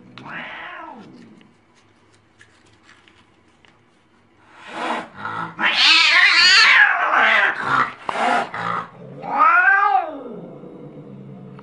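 An angry domestic cat yowling: a short yowl at the start, then after a pause a loud, harsh stretch of snarling yowls, ending in one long yowl that rises and falls.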